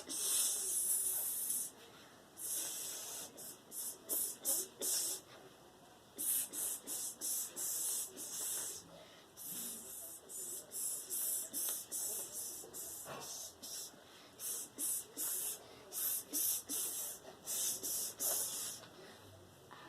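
A person shushing rhythmically, 'shh-shh-shh', to lull a baby to sleep: the 'snake' sound, a long series of short hisses in runs with brief pauses between them.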